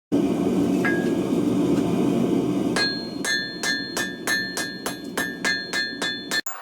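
A steady roar, likely the gas forge, for the first few seconds with a single ringing strike, then hammer blows on steel on an anvil, forging a W2 knife blank: about four blows a second, each with a clear metallic ring that carries through.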